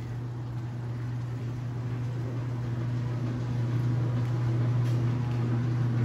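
A machine's steady low hum, growing louder over the few seconds, with fainter steady tones above it.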